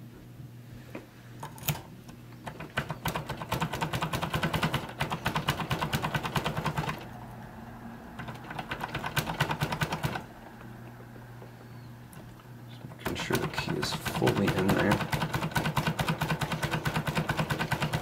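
Impressioning key blank being rocked and twisted back and forth in a Master Lock No. 5 padlock to make the pins mark it: a fast rattle of small metal clicks, about ten a second, in three runs of a few seconds each.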